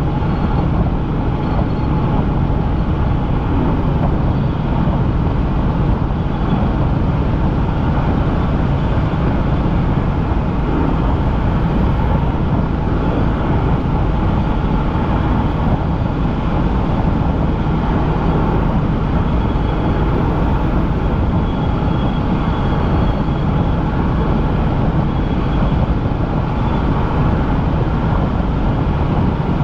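Helicopter in flight: the steady, loud drone of its engine and rotor, unbroken throughout.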